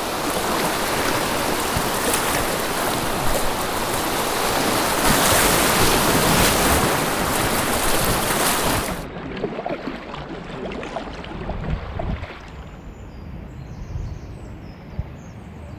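Rushing river rapids around an inflatable kayak: a loud, hissing flow of whitewater that drops suddenly about nine seconds in to a quieter, duller flow of water.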